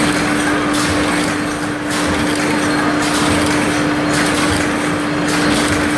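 Tin can side seam welding machine running: a steady hum under dense machine noise, with a hiss that thins and returns about once a second.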